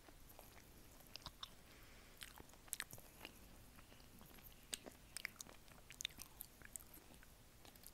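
Close-miked chewing of chocolate, picked up by an earphone microphone held at the lips: scattered sharp, wet mouth clicks and smacks over a faint hiss.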